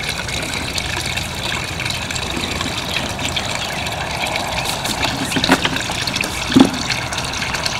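Water running from a garden hose into the horses' water, a steady rushing splash. A short knock stands out near the end.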